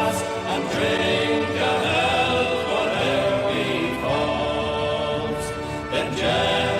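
Choral music: a choir singing sustained chords that shift slowly from one to the next.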